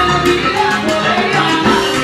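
Live salsa band playing, with a steady percussion beat under sustained instrument notes.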